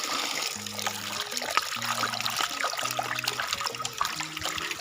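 Water running and splashing, a steady hiss full of small droplet ticks, with background music's low bass notes underneath.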